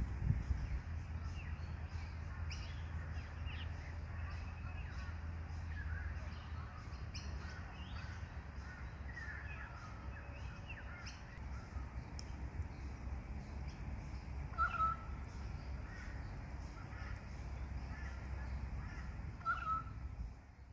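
Outdoor garden ambience: scattered short bird calls over a steady low rumble, with two louder short calls in the later part.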